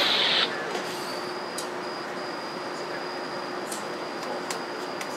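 Rail-yard sound of diesel locomotives: a loud rushing noise with squealing tones cuts off abruptly about half a second in. It leaves a steady low hum with a faint high whine and scattered clicks.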